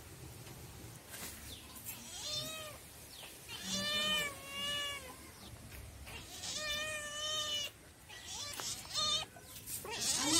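Domestic grey cat meowing repeatedly: about five meows from about two seconds in, the two in the middle long and drawn out.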